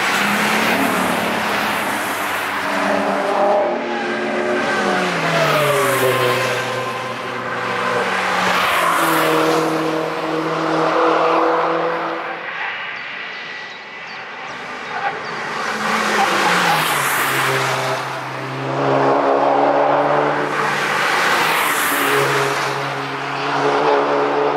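Cars at speed passing a race circuit one after another, with engines revving hard. Their engine notes drop in steps with gear changes and pitch shifts as they go by. Each pass swells loud and then fades into the next.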